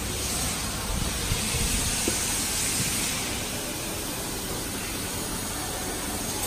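BMW 420i's turbocharged four-cylinder engine running steadily, heard as an even hiss over a low rumble.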